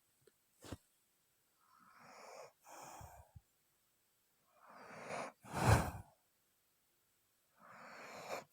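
A woman snoring in her sleep, worn out with fatigue. She breathes about every three seconds, each breath building from a soft hiss into a louder snore, the loudest near the end.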